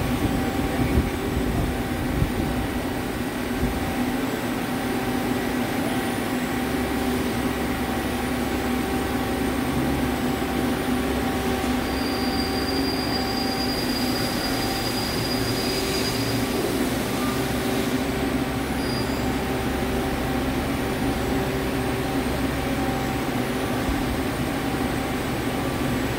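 Hyundai Wia L300MSC CNC turning center powered up and running: a steady machine hum made of several held tones. A low rumble joins about six seconds in, and a thin high whine is held for a few seconds around the middle.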